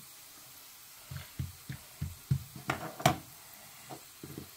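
Soft thuds of paratha dough being folded and pressed by hand on a wooden worktop, about two or three a second, with one sharper knock about three seconds in.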